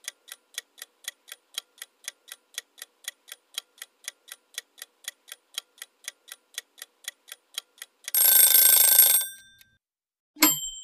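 Kitchen timer ticking fast and evenly, about four or five ticks a second, for roughly eight seconds. Then it rings briefly, and a single short ding follows near the end, signalling that the baking time is up.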